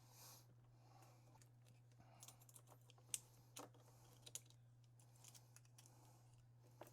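Faint scattered small clicks of a lock and lockpicking tools being handled, most of them between about two and four and a half seconds in, over a low steady hum.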